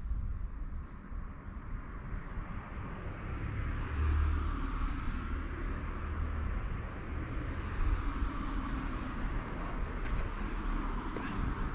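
A car driving past on a nearby road, its engine and tyre noise swelling about four seconds in.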